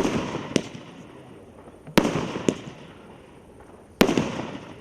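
30 mm fireworks battery (cake) firing shots one after another, a sharp loud report about every two seconds, three in all, the first two each followed by a fainter pop about half a second later.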